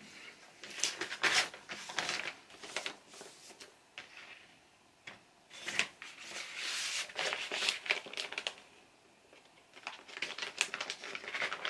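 Paper inner sleeve and cardboard LP jacket being handled: the sleeve rustles and scrapes as it is slid into the album cover, with light taps. It comes in three spells of rustling.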